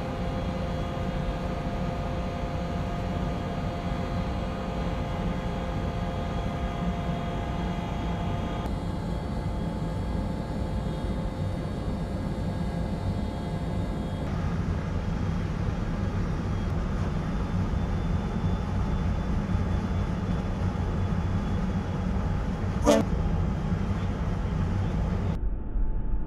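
Steady low rumble and hum with several steady tones running under it, the sound of a warship's machinery heard on deck. A short sharp sound stands out near the end.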